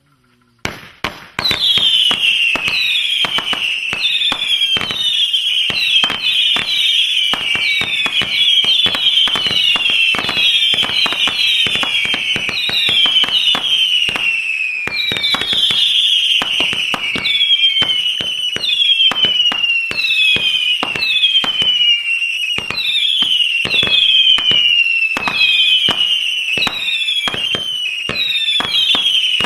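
Howling Phantoms 100-shot firework cake firing whistling serpents and bombettes: a constant stream of overlapping whistles, each falling in pitch, with rapid sharp pops throughout. It opens with a couple of pops about a second in before the barrage settles in.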